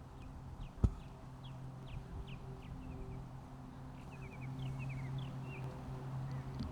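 Outdoor ambience: small birds chirping in quick, short, falling notes over a steady low hum, with one sharp click just under a second in.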